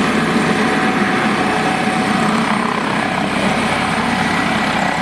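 Airbus H145 helicopter lifting off and climbing slowly, its main rotor making a steady, loud, fast thrum, with a faint turbine whine above it.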